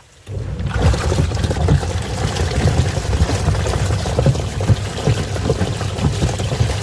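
Washing machine starting up just after the start, its motor running and water churning and sloshing in the tub, with small knocks scattered through it.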